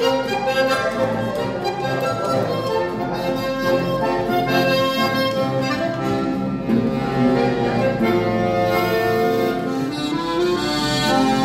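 Accordion-led music playing continuously.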